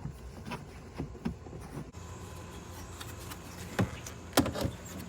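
Light clicks and taps of hands handling a car tail light assembly and its wiring plug, with two sharper clicks about four seconds in, over a steady low hum.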